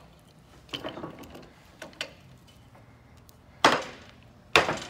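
Metal clanking of hand tools. A large pliers wrench clacks against the rust-seized adjusting nut of an old J.H. Williams wrench as it is gripped and wrenched. A few light clicks come first, then two loud, sharp clanks near the end.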